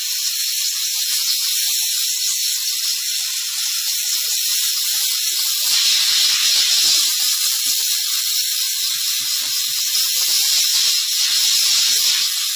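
Steam car-wash machine's hand nozzle hissing steadily as its jet of steam is played over a car seat's fabric upholstery. The hiss grows louder about halfway through and again near the end.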